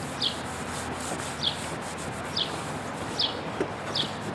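Microfiber washcloth rubbing over a plastic headlight lens as it is wiped dry, with a short, high, falling bird chirp repeating about once a second.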